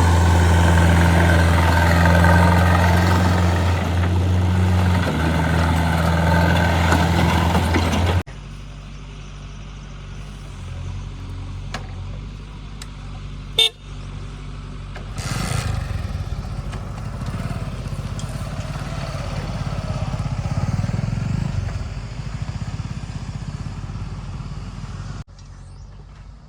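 Loud, steady blare from a vehicle for about eight seconds, then, after a sudden cut, a quieter engine running, with a sharp click partway through and a louder stretch after it.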